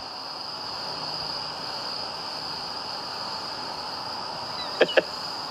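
Steady outdoor night ambience: insects trilling continuously at a high pitch over an even hiss, with two short chirps close together about five seconds in.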